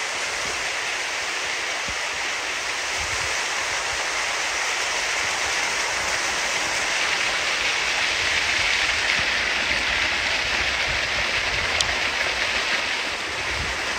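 Rain-swollen creek rushing over rocks in a steady, loud rush of water, with a single sharp click near the end.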